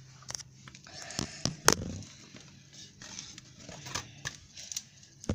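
Crinkling and rustling with scattered light clicks and taps: small kit parts and their packaging being handled.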